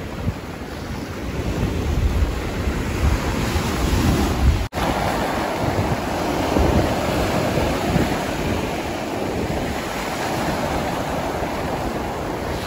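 Small ocean waves breaking and washing up a pebble shore, with wind rumbling on the microphone; the sound drops out for an instant about five seconds in.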